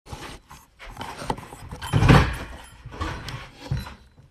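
Rubbing, rustling and knocking as a phone is handled and carried. The noises come in uneven bursts, with the loudest, lowest one about two seconds in.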